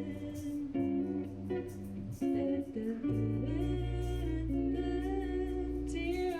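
Music led by plucked guitar, with a low bass line coming in about halfway through.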